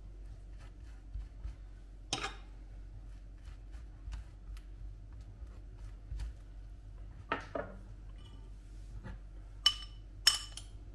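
Kitchen tableware being handled while preparing food: scattered light clicks and knocks, then two sharp ringing clinks near the end, the loudest sounds.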